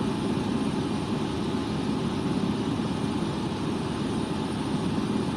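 AgustaWestland helicopter's turbine engine and rotor running with a steady, low drone.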